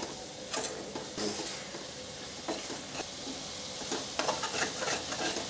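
Tomato-onion spice masala sizzling as it fries in an aluminium kadai, stirred with a steel spoon that scrapes and clicks against the pan now and then.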